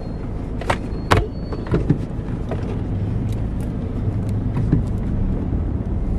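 Steady low rumble of a running car heard from inside the cabin, with a few short clicks and knocks of things being handled.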